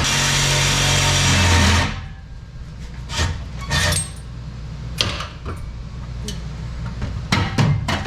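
A power tool cutting through the steel exhaust pipe to take off the old muffler, stopping abruptly about two seconds in. Then scattered clanks and knocks as the cut pipe and muffler are handled.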